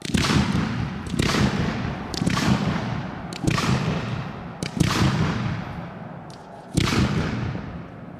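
Firework shells being launched one after another from mortars: about six launch thumps, each followed by a fading hiss as the shell climbs trailing its comet tail.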